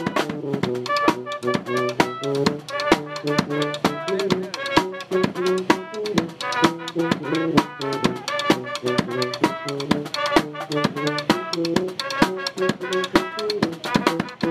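Music with a steady drum beat and brass instruments.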